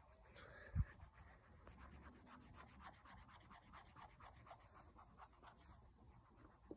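Paintbrush with acrylic paint brushing across paper in a run of quick, faint, scratchy strokes. A single low thump comes about a second in.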